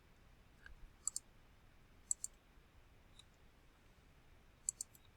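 Computer mouse button clicks, a few single ones and three quick double-clicks, over faint room hiss.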